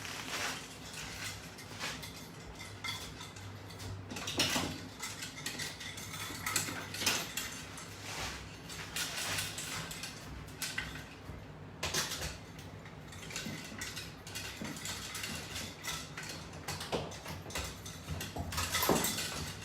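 Metal exercise attachment hardware clinking and rattling irregularly as a resistance band is worked, with a few louder clanks, over a faint steady hum.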